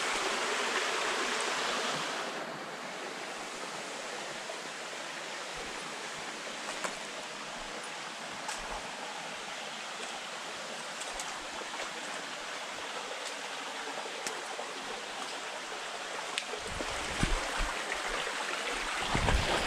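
Shallow rainforest stream running over rocks, a steady rush of water, louder for the first couple of seconds. Near the end come a few low bumps and knocks.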